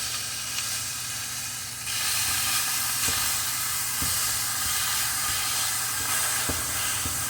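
Sirloin burger patties sizzling in a hot skillet: a steady frying hiss that grows louder about two seconds in, with a few light ticks.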